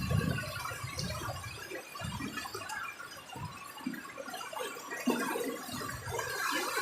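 Heavy rain with gusts of strong wind: a steady patter of drops over a low rumble of wind that eases about two seconds in and picks up again near the end.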